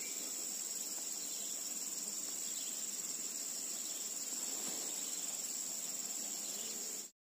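Steady, high-pitched insect drone from the surrounding forest, holding one even pitch, cutting off suddenly near the end.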